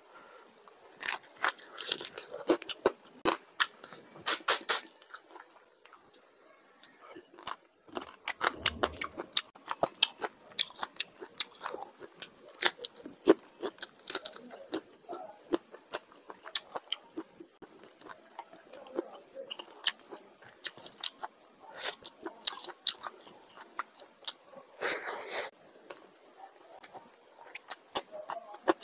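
Close-miked eating of fried prawn and fish curry with rice by hand: steady chewing and biting with many sharp, wet mouth clicks and smacks. There is a dull low bump about a third of the way in.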